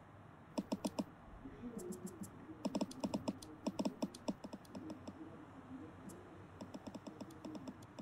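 Smartphone touchscreen keyboard being typed on: quick runs of sharp key clicks in several bursts with short pauses between, as a text message is written.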